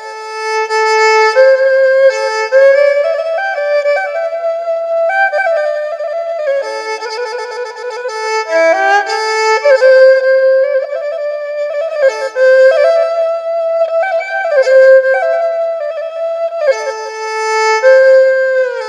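Background music: a single melodic wind or bowed instrument playing a slow, ornamented tune with gliding notes.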